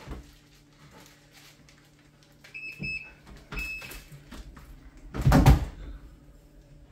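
Handling sounds from a potted plant in a plastic sleeve being turned in the hands: small clicks and a few short high squeaks, then one louder, muffled thump-rustle about five seconds in.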